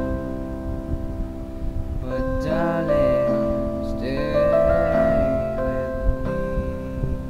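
Portable electronic keyboard played in a slow ballad, with sustained chords under a melody. A voice sings along in two short phrases near the middle.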